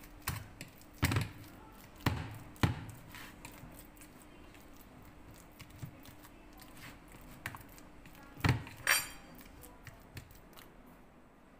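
Metal fork mashing banana in a plastic tub: irregular knocks and clicks as the fork strikes the tub, sparser through the middle, then two louder knocks near the end, the second ringing briefly.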